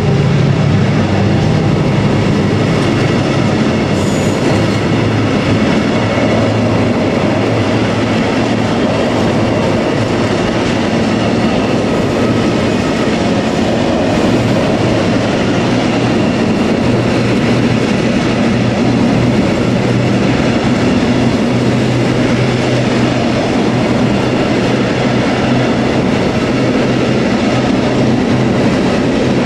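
Container freight train's loaded flat wagons rolling past, a steady, unbroken rumble of steel wheels on the rails.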